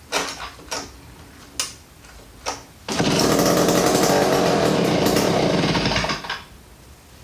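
Sears David Bradley 758G chainsaw's 95 cc Power Products AH58 two-stroke engine pulled over three times, then catching on a prime of brake parts cleaner about three seconds in, running steadily for about three seconds and dying out. It runs only on the prime: its carburetor needs rebuilding.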